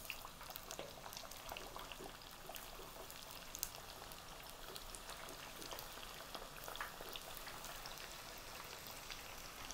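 Chicken karaage pieces, thigh meat coated in potato starch, deep-frying in oil at 170°C: a faint, steady sizzle of fine crackles and pops, with one sharper pop about three and a half seconds in.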